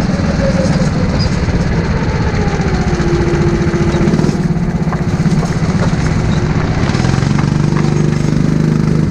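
Go-kart engine running, its revs falling over the first few seconds as the kart slows, then holding a steady low tone near the end.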